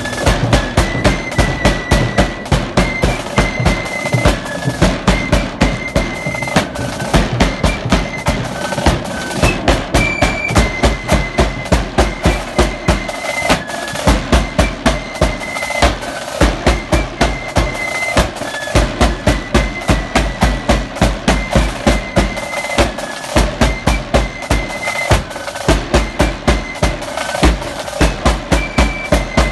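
Loyalist flute band playing a march: a high flute melody over rattling snare drums and the steady beat of a large bass drum.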